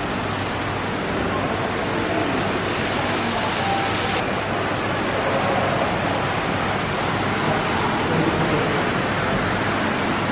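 Shopping-centre hall ambience: a steady, even rush of noise with faint distant voices.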